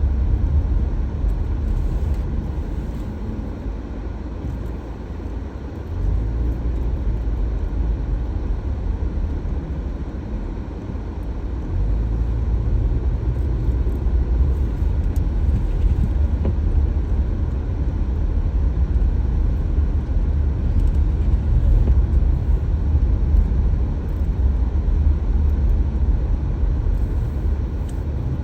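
A car driving, with a steady low rumble of engine and road noise. The rumble fades a little a few seconds in, then comes back abruptly.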